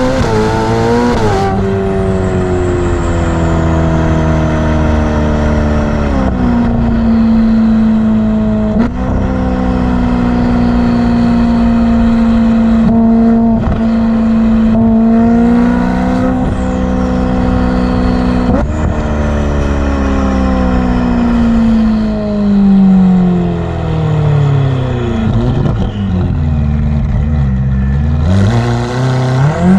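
Ferrari F8's twin-turbo V8 running under way. The engine note holds fairly steady, jumping suddenly in pitch a couple of times, over a thin high turbo whine that falls slowly in pitch. Near the end the note sinks and then climbs quickly as the engine revs up.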